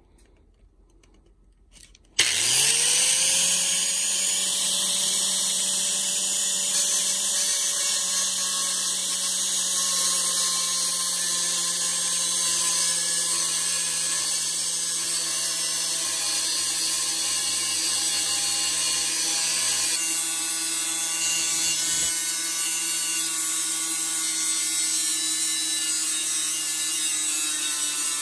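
Electric grinder switching on about two seconds in and spinning up quickly to a steady whine. It keeps running loudly as it grinds a metal piece off, throwing sparks.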